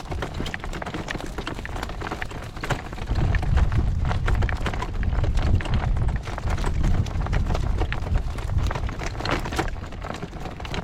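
A horse's hooves clip-clopping steadily over dry ground, with gale-force wind buffeting the microphone in a low rumble that grows heavier about three seconds in.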